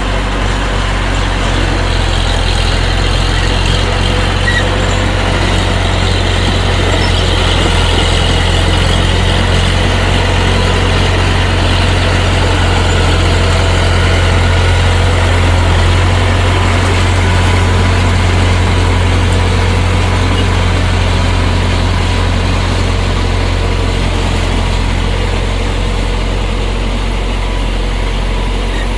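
Bulldozer's diesel engine running steadily with a deep, continuous drone, swelling slightly around the middle.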